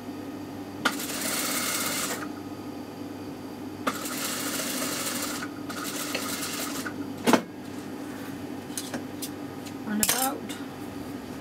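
Toyota sewing machine stitching a seam in three short runs, with a steady hum between them. A sharp click comes about seven seconds in, and a brief rasp near the end.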